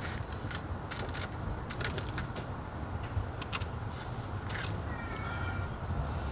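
A fork clicking and scraping at foil-wrapped grilled fish, a scatter of light clicks and crinkles over a steady low rumble. A brief high-pitched sound comes about five seconds in.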